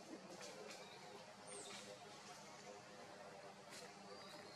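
Near silence: faint outdoor ambience, with two brief high chirps that fall in pitch, one about a second and a half in and one near the end.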